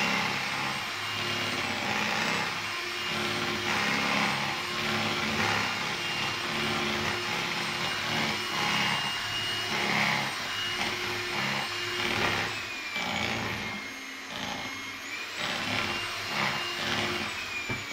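Handheld electric kitchen mixer running, its beaters whirring through cake batter in a bowl. Its motor pitch dips about two-thirds of the way through, then climbs back up a few seconds later.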